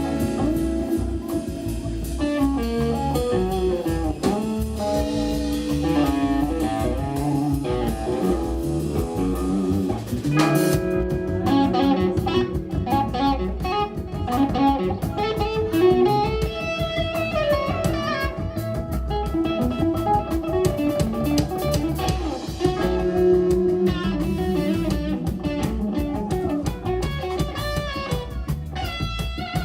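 Live instrumental band playing: a melodic electric guitar lead over bass guitar and drum kit, with a sharp drum and cymbal accent about ten seconds in.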